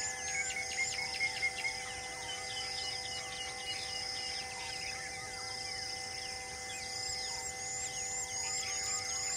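Tropical forest ambience: insects droning steadily with a repeated rising high call, and birds chirping in short, quick notes that thin out after the first few seconds.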